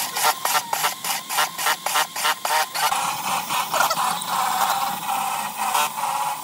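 A cordless drill spins a hole saw through a wooden panel. For the first half the saw chatters with a regular clatter of about five knocks a second, then it settles into a steadier whining cut.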